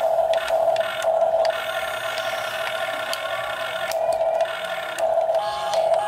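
Huina remote-control toy excavator's small electric motors and gearboxes whining as the boom and bucket scoop sand, stopping and starting again several times as different functions are worked, with a few sharp clicks.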